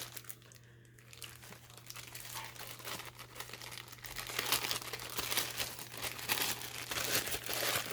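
Craft scraps and trims being rummaged through and handled, a steady crinkling and rustling that grows busier and louder after about three seconds.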